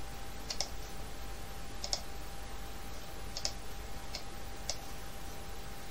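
Computer mouse clicking: about five short, sharp clicks spread across the few seconds, some in quick pairs, over a faint steady hum.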